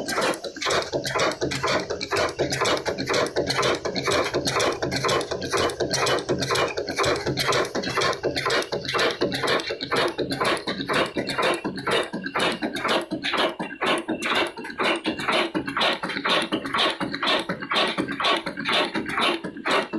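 Old Ruston Hornsby diesel engine running steadily, its exhaust beating evenly at about three beats a second.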